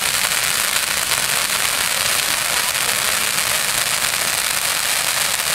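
Firework burning with a steady, dense crackle.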